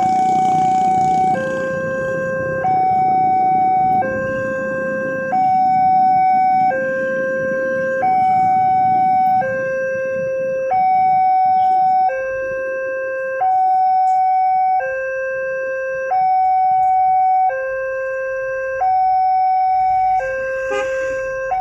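Level-crossing warning alarm from the loudspeaker on the signal mast: two electronic tones, high and low, take turns, each held about a second and a half, repeating steadily while the barrier is down. A low rumble fades out over the first several seconds.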